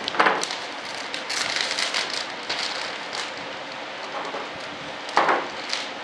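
Clear plastic vacuum-bag film crinkling and rustling as it is handled and smoothed over the parts, with irregular crackles throughout. There are two louder scrunches, one right at the start and one about five seconds in.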